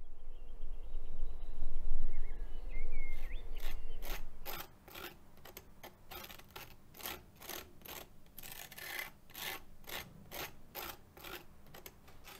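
A low outdoor rumble with a few faint bird chirps, then a table knife scraping spread across a slice of toast in short rasping strokes, about two to three a second.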